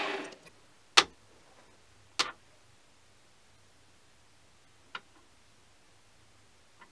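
Machined metal plates being handled and set against each other on a bench vise: sharp metallic clacks, the loudest about a second in, another just after two seconds, and a fainter one about five seconds in.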